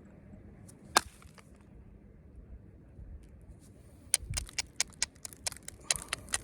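Flint knapping: knapping tools clicking against a stone point. One sharp click about a second in, then from about four seconds in a quick run of sharp clicks, several a second.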